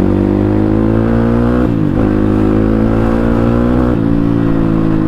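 CX300C motorcycle's exhaust running without its dB killers, open and loud, under acceleration: the engine note climbs steadily, drops sharply at a gear change about a second and a half in, then climbs again, with a brief dip near four seconds.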